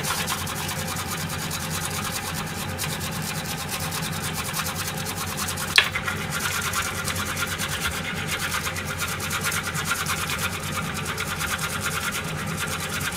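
Fresh ginger grated on a metal oroshigane grater: fast, even back-and-forth rasping strokes, with one sharp tap about six seconds in.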